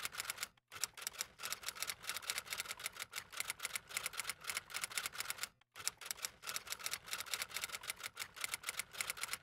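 Typewriter keys clacking in a rapid run, as a typing sound effect, with two short pauses about half a second in and near the middle.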